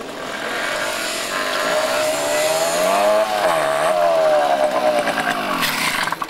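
Small motorcycle engines running as two dirt bikes ride up close. The engine note rises and grows louder, dips briefly about halfway through, then falls away, dropping off sharply near the end.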